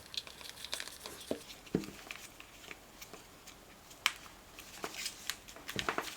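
Small plastic parts being handled: scattered light clicks and taps, with a duller knock just under two seconds in and a sharper click about four seconds in.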